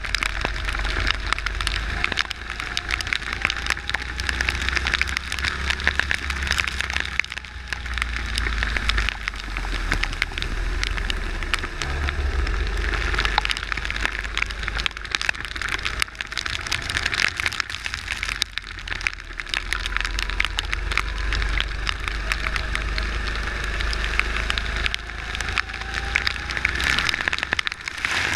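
Rain and spray from the wet track spattering on an onboard kart camera, a dense steady crackle, over a constant low rumble of wind and engine; the kart's faint engine note rises a few times as it accelerates out of corners.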